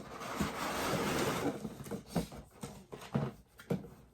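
Toy packaging being handled and opened: rustling for about two seconds, then several light knocks and clicks.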